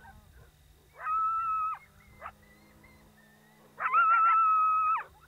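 Two coyote-style howls, each held at one steady pitch with a quick rise at the start and a drop at the end. The second comes about four seconds in, is louder and lasts just over a second.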